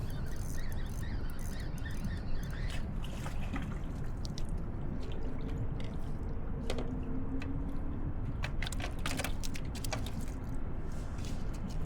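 Water splashing and dripping beside a kayak, with scattered small clicks and knocks from handling, over a steady low rumble. A faint low hum comes in about halfway through.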